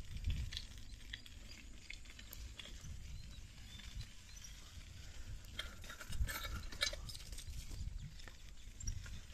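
Mountain bike rolling over a sandy, stony dirt track: tyres crunching on grit and the bike rattling with irregular clicks, thickest about six seconds in, over a low rumble.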